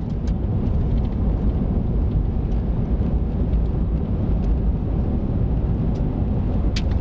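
Steady low rumble of road and engine noise inside a moving vehicle, with a single sharp click near the end.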